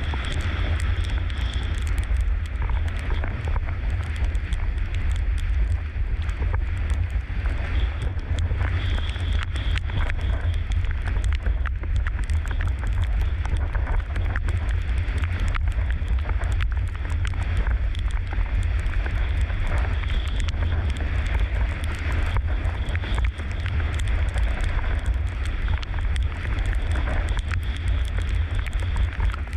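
Heavy wind buffeting on a GoPro action camera's microphone as a windsurf board planes at about 40–50 km/h, over a steady rush of water and spray under the board, with frequent small knocks.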